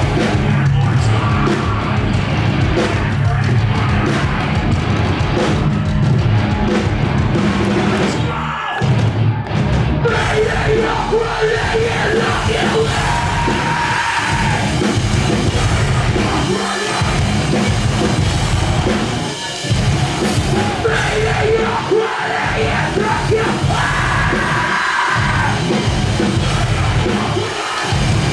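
A metalcore band playing live and loud: heavy distorted guitars and pounding drums under screamed vocals, with a few short breaks in the din.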